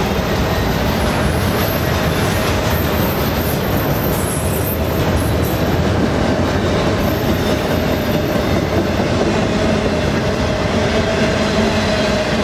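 A freight train of autorack cars rolling past close by: a steady rumble of steel wheels on the rails, with a faint, thin, high wheel squeal over the first two-thirds.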